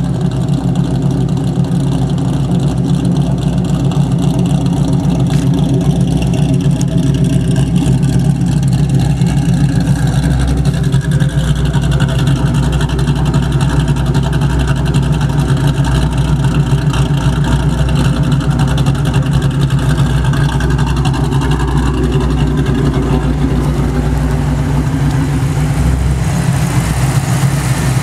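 Modified 1999 Ford Mustang GT's 4.6-litre V8 running steadily, near idle, through long-tube headers and an aftermarket cat-back exhaust. A tapping is heard from the engine, and its cause is unknown to the owner.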